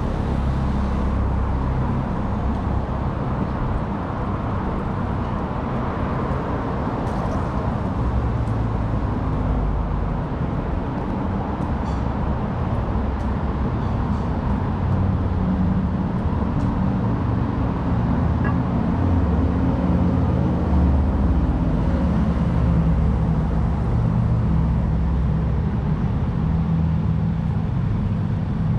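City street traffic: cars driving past in a steady low rumble of engines and tyres.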